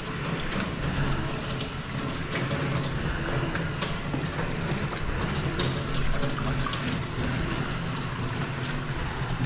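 Steady electric motor hum under a continuous crackling patter of water, typical of a drain-cleaning machine running in a laundry drain plugged with lint and food.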